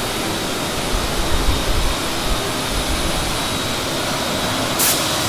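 Steady, continuous noise of the machinery and air in a guitar-body sanding and polishing shop, with a brief hiss near the end.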